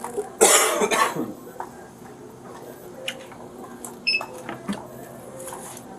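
Checkout-counter sounds: a loud noisy burst lasting under a second near the start, then a few light clicks and a short electronic beep from the register about four seconds in.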